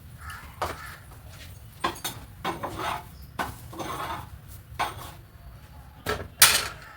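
Dishes and utensils being handled, clinking and clattering in a string of irregular sharp knocks, about seven in all, the loudest near the end.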